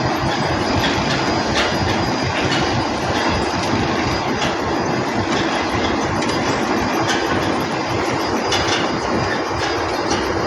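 Concrete mixer truck running: a loud, steady mechanical rumble with light rattling and ticking.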